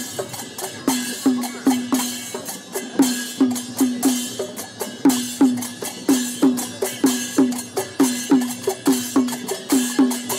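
Festival street percussion: a double-headed drum beaten with a stick in a steady, fast pattern of about three strokes a second, each stroke's pitch sinking slightly, with small hand cymbals clashing along.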